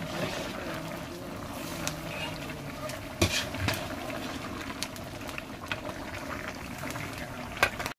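A large pot of mutton curry boiling over a wood fire, with steady bubbling. A long metal ladle in the pot knocks sharply against it a few times, twice around the middle and once near the end.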